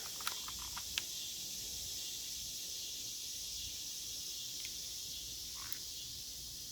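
A few light metallic clicks in the first second as a single .22 round is dropped into a Kel-Tec CP33 pistol by hand, over a steady high hiss of background ambience. No shot is fired.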